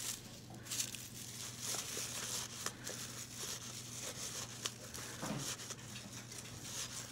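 Paper shred rustling and crinkling as fingers press it into a small cardstock box, in light, irregular bursts.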